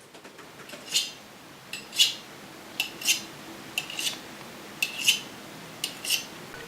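Clock ticking in a quiet room: sharp, metallic ticks about once a second, most of them a light click followed closely by a louder one.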